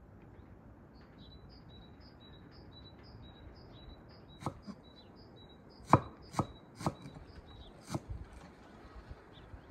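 A large knife chopping fresh greens on a wooden stump board, about five single strokes from about halfway, with a bird chirping a short repeated note throughout.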